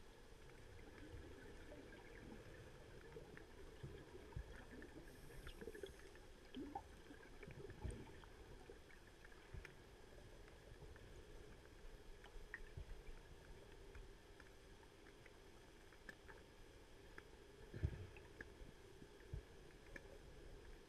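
Near silence underwater: a faint steady hum with scattered small clicks and a few low knocks, the loudest knock about three-quarters of the way through.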